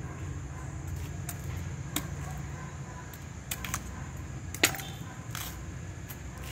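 Long-bladed knife chopping hands of lakatan bananas off the bunch's stalk: a few sharp, separate cuts, the loudest about two-thirds of the way in.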